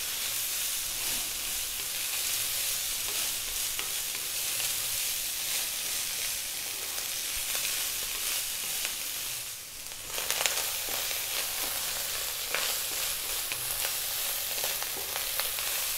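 Cold cooked basmati rice and mushrooms sizzling steadily as they stir-fry on high heat in a wok, with occasional scrapes and clicks of a wooden spatula against the pan. The sizzle dips briefly about ten seconds in.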